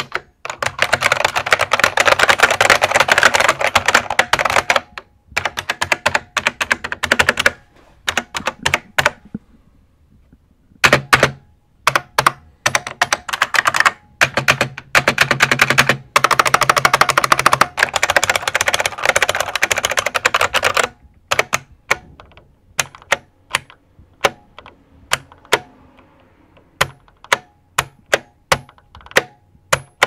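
Typing on a Unicomp buckling-spring mechanical keyboard: keys clacking as their buckling springs snap down and bounce back up. Several bursts of fast, dense typing give way to slower single key presses about two-thirds of the way through.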